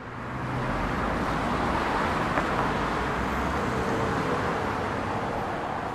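Steady outdoor street ambience with the even rush of road traffic, fading in at the start.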